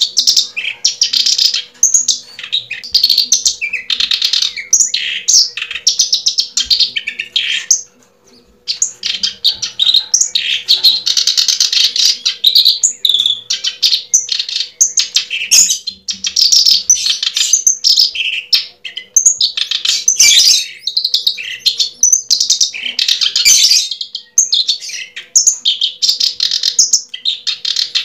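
Bird chirping and twittering almost without a break, briefly pausing about eight seconds in, with a faint steady hum underneath.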